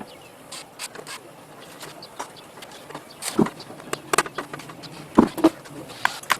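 Irregular clicks and knocks of hard parts being handled during work on an old desktop computer. The sharpest and most frequent come between about three and six seconds in.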